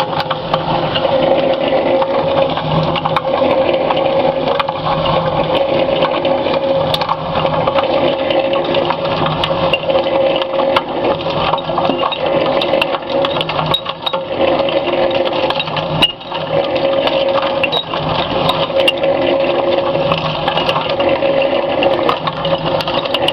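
Electric cement mixer running as a ball mill: its drive hums steadily while the charge of heavy steel balls, nuts and rods tumbles in the turning drum, clattering and knocking continuously against the wet incinerated chips and the drum wall.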